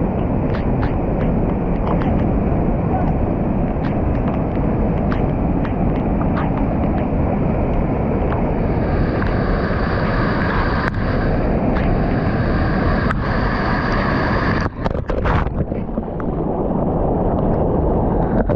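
Rain-swollen river floodwater rushing and churning over a small dam's concrete spillway: a loud, steady torrent. It briefly breaks up and dips about fifteen seconds in.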